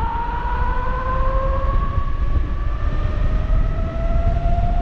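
A 3,000-watt electric bike's motor whines, its pitch climbing slowly and steadily as the bike gathers speed. Wind rumbles on the microphone underneath.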